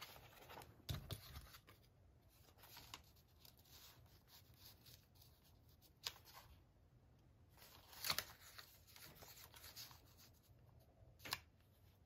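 Faint rustling and light taps of paper being handled by hand: a journal page is turned and a small paper tag is pressed into place. A few brief, sharper ticks are scattered through.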